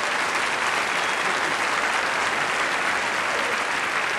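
Theatre audience applauding and laughing after a punchline, a steady dense clapping.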